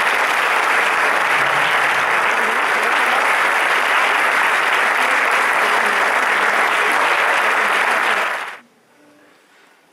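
Audience applauding steadily, then stopping fairly suddenly near the end.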